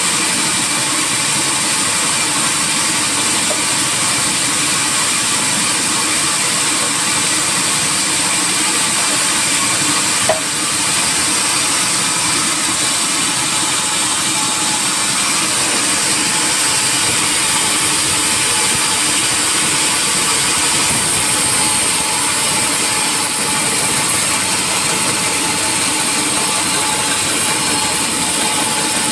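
Sawmill machinery running steadily, a loud even mechanical noise with a thin high whine, and one sharp click about ten seconds in.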